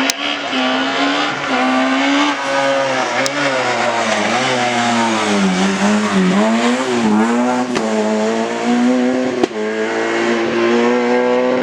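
Rally car engine at high revs, its pitch dipping and climbing several times as the driver lifts off and gets back on the throttle, with a few sharp cracks along the way.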